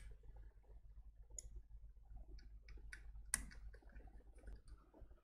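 Faint scattered clicks and light knocks from hands handling a computer power supply's circuit board and sheet-metal case as the board is taken out, with one sharper click about three and a half seconds in.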